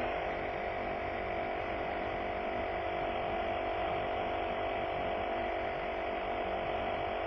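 A small machine running steadily, a constant whirring hum with several steady tones.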